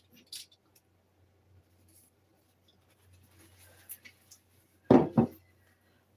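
Faint rubbing and handling sounds as a stuck oil-bottle cap is gripped through a paper towel to twist it open, with one short louder sound about five seconds in.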